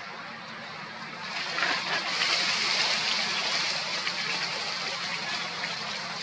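Steady rushing hiss of outdoor background noise that swells about a second in and stays up, over a faint low hum.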